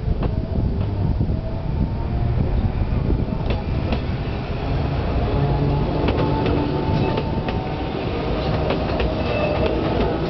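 Sangi Railway Hokusei Line narrow-gauge electric train running past on the adjacent track and moving away: a steady low rumble with a motor hum, and from a few seconds in, sharp clicks of the wheels over the rail joints and points.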